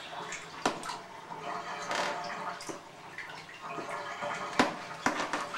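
Water splashing and sloshing in a bathtub as hands scrub in it, with a few sharp splashes.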